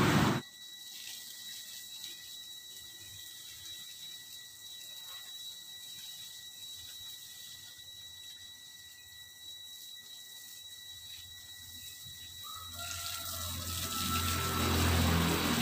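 Garden hose spraying water onto soil and wood: a steady hiss. It is loud for the first half second, then drops sharply and stays quieter, and grows louder again near the end.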